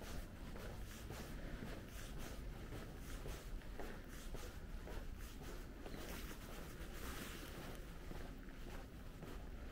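Footsteps at a steady walking pace over faint outdoor background rumble, with a brief hiss about seven seconds in.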